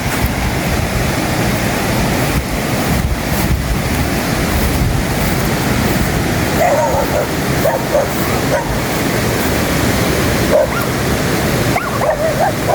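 A dog whimpering in short, high yelps from about halfway through, over a steady rushing noise.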